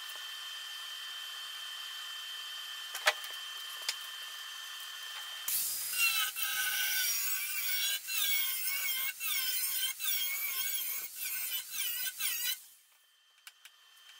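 Angle grinder with a thin cut-off wheel (zip cut) scoring 3/32-inch steel plate partway through so it will bend, in a series of short passes with its pitch wavering under load. It starts about five seconds in and stops a second or two before the end, after a faint steady hum and two light clicks.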